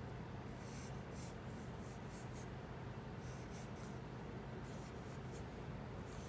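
Black pen scratching across paper in a string of short, irregular strokes as curved lines are drawn, over a steady low hum.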